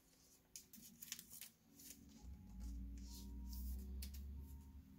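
Faint rustles and light clicks of a trading card being handled and slid into a soft plastic sleeve. A low steady hum comes in about two seconds in and fades near the end.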